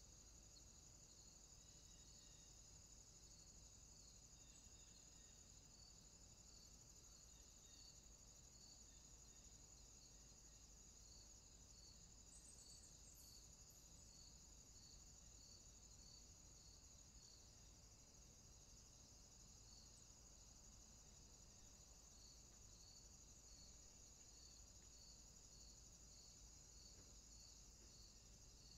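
Near silence, with faint insect chirping, typical of crickets: a steady high trill with a regular pulse about once a second.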